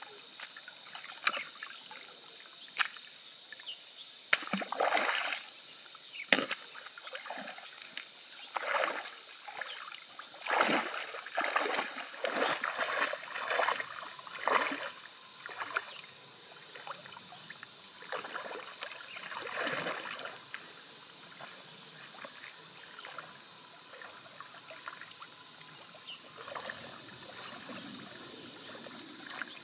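Shallow river water splashing and sloshing as a person wades through it and works in it with her hands and a wicker basket. The splashes come in irregular bursts, busy for most of the first two-thirds and quieter near the end.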